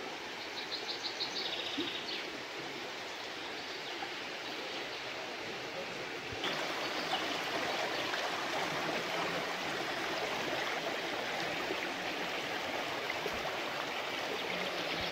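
Shallow stream rushing over stones in a rocky riverbed, a steady water noise that gets louder about six seconds in.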